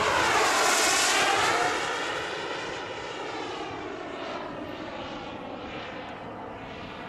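Twin JetCat P120 gas turbines of a quarter-scale RC English Electric Lightning model making a fast jet pass. It is a loud rushing jet sound with a sweeping, phasing whoosh, strongest in the first couple of seconds and then fading as the model flies away.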